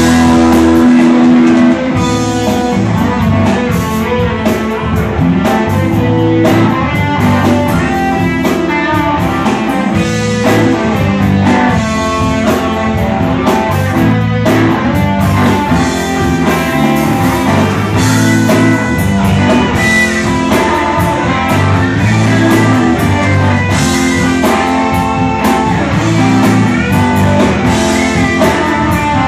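Live rock band playing an instrumental passage: two electric guitars over bass guitar and a drum kit.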